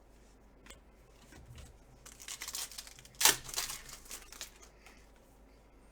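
Foil trading-card pack wrapper being torn open and crinkled, with one sharp loud crackle a little past three seconds in.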